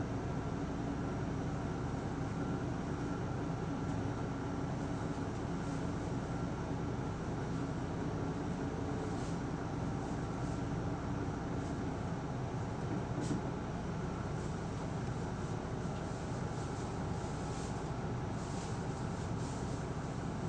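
Inside a PKG-LV234L2 Isuzu Erga city bus: its diesel engine runs steadily under the cabin and road noise, with a few faint clicks or rattles around the middle.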